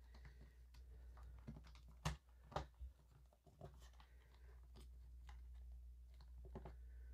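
Small plastic toy-playset pieces being handled and pressed into slots, giving faint scattered clicks and rattles, with two sharper clicks about two seconds in as parts snap into place.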